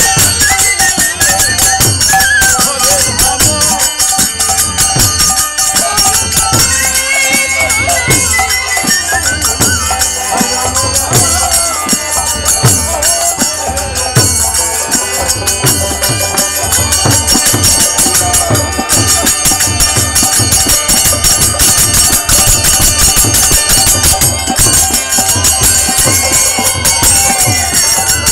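Bengali kirtan music: hand cymbals jingling in a steady rhythm over regular drum beats, with a melody line sliding up and down above them.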